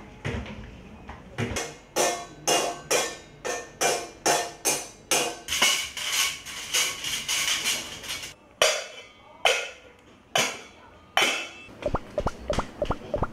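Household objects knocked and rattled in a steady beat, about two strokes a second, with stainless steel utensils clattering and ringing midway, then a quick run of clicks near the end.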